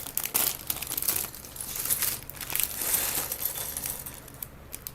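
LEGO parts bag crinkling as it is opened, with small plastic pieces clicking and clattering out; the noise dies down near the end.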